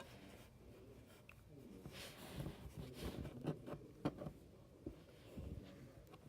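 Hands squeezing and working a lump of soft homemade shampoo-and-flour play dough: faint, irregular soft squishes and light taps, busiest in the middle.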